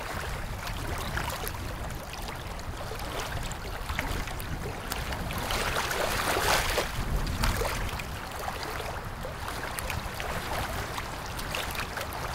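Sea water sloshing and lapping around a wooden outrigger boat, a steady watery rush with small splashes and crackles, swelling louder for a couple of seconds about halfway through.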